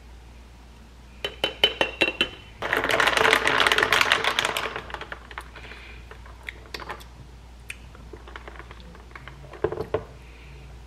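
Ice cubes clinking against a glass as an iced chai latte is stirred with a straw: a quick run of sharp clinks, then about two seconds of dense rattling, then a few scattered clinks.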